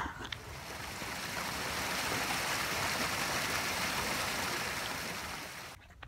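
A small stream of clear water running: a steady rushing that swells over the first couple of seconds, fades, and cuts off sharply near the end.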